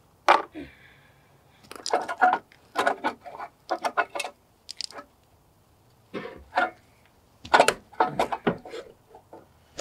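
Irregular clanks, rattles and scrapes as a snowblower's cover plate is handled and fitted by hand. They come in short clusters, the sharpest just after the start and again about three-quarters of the way through.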